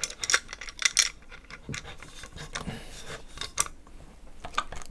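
An adjustable wrench clicking and scraping against the metal nut that holds the barrel to an airsoft BRN-180S upper receiver as the nut is tightened: irregular light metallic clicks, about one every second or less.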